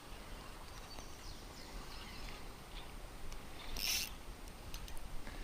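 Quiet outdoor riverside ambience with faint high chirps and a brief high hiss just before four seconds in.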